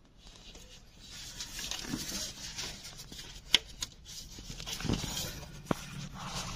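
Rustling and handling noise with a few sharp clicks and a dull knock, as of tools and wiring being handled in an engine bay; no starter or engine running.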